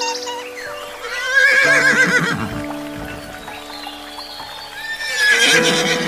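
A horse whinnying twice: a long quavering neigh about a second in and a shorter one near the end, over background music with held notes.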